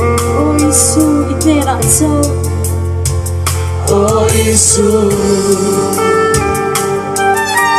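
A worship song sung with instrumental backing: voices over sustained bass notes and a steady percussive beat.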